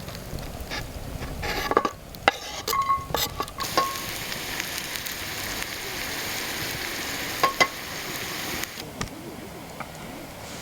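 Steak sizzling over a campfire, preceded by a few sharp metal clinks; the steady sizzle starts about four seconds in and cuts off abruptly near the end.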